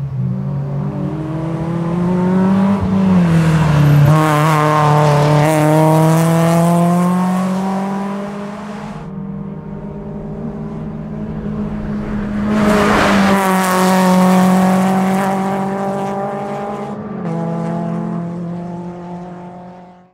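BMW E36 race car's engine running hard on track, loudest about four seconds in and again about thirteen seconds in as the car passes, its pitch rising and falling. The sound fades out at the very end.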